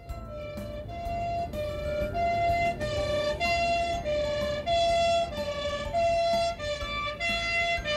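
Emergency vehicle's two-tone hi-lo siren, switching between two pitches about every half second over a low rumble.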